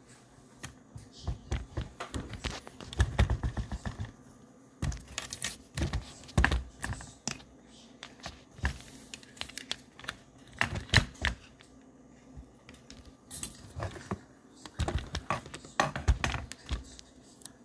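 Handling noise from a phone being held and repositioned: irregular clusters of taps, clicks and small knocks from fingers and the phone's body, a few of them heavier thuds.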